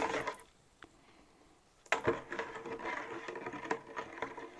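A spoon whipping a thick honey and brown sugar wine must hard in a container, rapid clacking and scraping against the sides. It stops briefly about half a second in and starts again with a sharp knock just before the halfway point.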